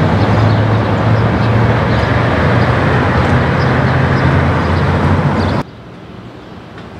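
City transit bus's diesel engine running loudly amid street traffic noise, with a steady low hum. It cuts off abruptly about five and a half seconds in, leaving a much quieter outdoor background.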